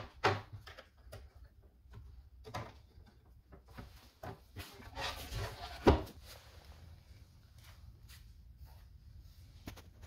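Handling sounds from joining two aluminium track-saw guide rails with a connector: scattered clicks and taps, and a sliding scrape about five seconds in that ends in a sharp knock near six seconds.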